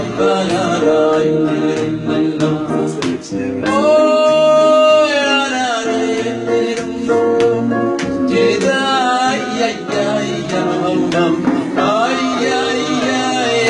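Man singing into a microphone over instrumental accompaniment, holding one long note about four seconds in.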